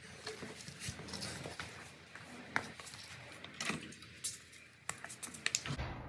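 Scattered metal clicks and clinks of tools and engine parts being handled while a seized Predator 212 minibike engine is taken apart.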